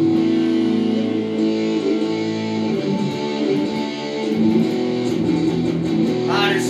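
Electric guitar playing held chords and single notes in an instrumental passage of a song, the notes changing every second or so.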